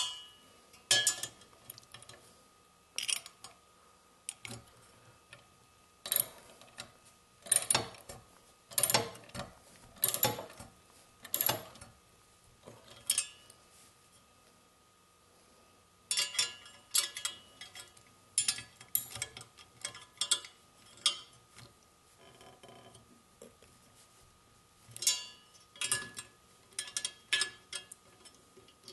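Socket ratchet clicking in short runs with pauses between, as lock nuts are snugged on the bolts that hold the blades of a Jiffy STX ice auger cutting head; they are not yet fully tightened.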